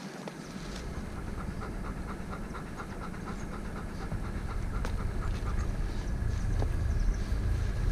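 Belgian Malinois panting fast in the heat, about six quick even breaths a second for a couple of seconds. Under it a low rumble of wind on the microphone starts about half a second in and grows louder.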